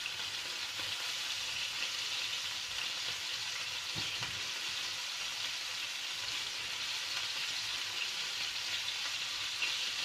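Flour-dredged pieces of viper frying in hot oil in a frying pan, a steady sizzle, with a faint click of the fork about four seconds in.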